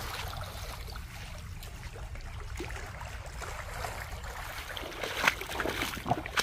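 Calm seashore at high tide: a soft, steady wash of water at the pebble shore over a low rumble of wind on the microphone. Near the end come a few sharp clicks.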